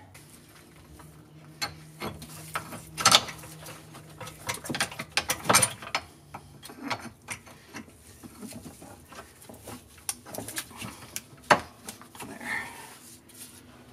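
Metal clinks and knocks of a bolt and a steel leaf spring shackle being handled and fitted under a golf cart's rear axle, with a few louder clanks about three, five and a half and eleven and a half seconds in.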